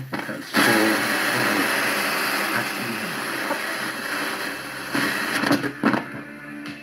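Radio static from the Sanwa 4002 receiver as its tuning knob is turned between stations: a steady rushing hiss, broken near the end by a few short stutters as the dial crosses a station.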